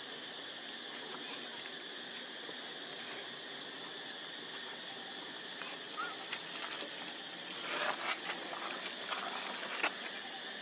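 Steady high insect drone, with short crackles and rustles of dry leaves starting about six seconds in and continuing to the end.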